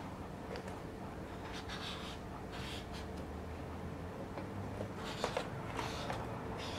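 Short rasping scrapes in two clusters, with a couple of sharp light knocks in the second cluster, over a low steady hum.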